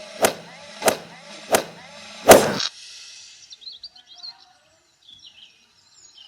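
Four sharp hits about two-thirds of a second apart over a steady background hum, the fourth the loudest. After the hum cuts off, faint high chirping like birdsong follows.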